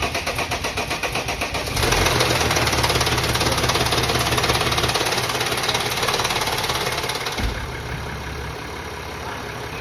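Freshly overhauled Mercedes-Benz ML350 V6 engine cranking with a fast pulsing, catching about two seconds in and running louder, then dropping to a quieter steady idle after a thump a couple of seconds before the end.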